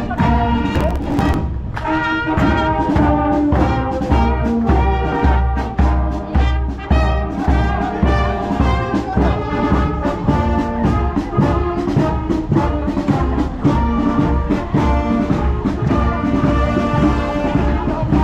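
Brass band music: trumpets and trombones playing a tune over a steady low drum beat.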